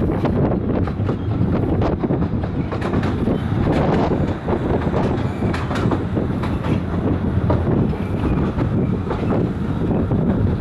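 Train on the 15-inch-gauge Ravenglass and Eskdale miniature railway running along the line: a steady rumble of wheels on the track with frequent clicks and clatter.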